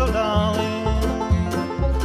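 Instrumental bluegrass break. An acoustic guitar strums a steady boom-chick rhythm under a picked string-band lead melody, with bass notes falling about twice a second.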